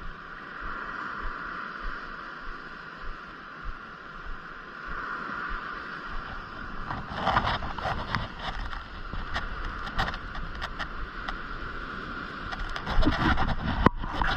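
Surf washing over a rock ledge as a steady hiss. From about halfway in, irregular clicks and knocks join it as a spinning reel is handled and cranked to wind in line, loudest near the end.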